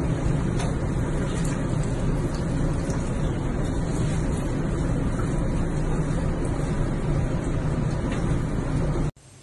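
Water in a bathtub making a steady rushing noise with a low rumble underneath, unbroken throughout.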